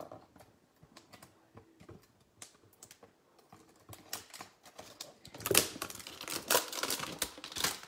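A series of light, sharp clicks and taps, sparse at first and growing denser and louder about five and a half seconds in.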